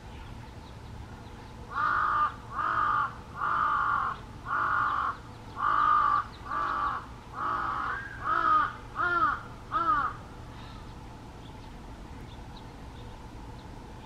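A crow cawing about ten times in a row, each caw about half a second long, the last few rising and falling in pitch.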